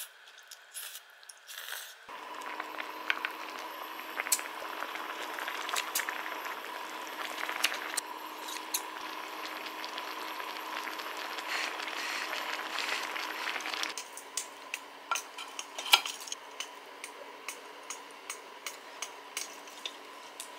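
Tteokbokki sauce simmering and sizzling in a shallow pan, with metal tongs and a spoon clinking against it. About fourteen seconds in the sizzle falls away, leaving a run of light, regular clicks.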